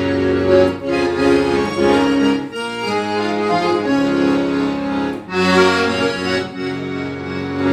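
Accordion playing a melody over sustained bass and chord notes, with brief breaks in the sound twice, about two and a half and five seconds in.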